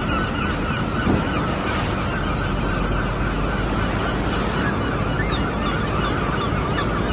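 Many birds calling together, a dense stream of overlapping chirps, over a steady rushing noise.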